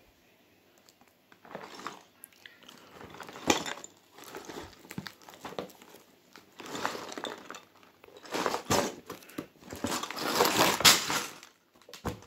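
Cardboard LEGO set box being handled and opened, with rustling, scraping and a few sharp knocks, then plastic bags of bricks crinkling as they are tipped out, louder and busier from about two-thirds of the way in.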